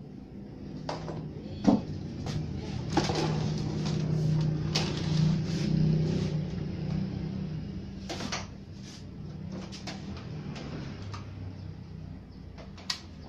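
Plastic cabinet of a Sony Trinitron CRT TV being handled and turned around on a wooden bench: a string of knocks and bumps over a low hum that swells in the middle. A sharp click near the end as a front-panel button is pressed.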